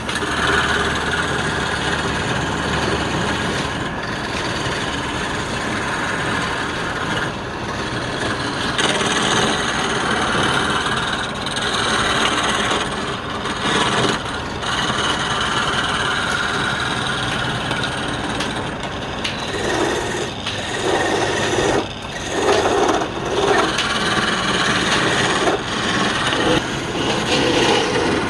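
A tool working spinning wood on a lathe: a continuous scraping rasp that swells and eases. In the last several seconds it comes in shorter, uneven strokes.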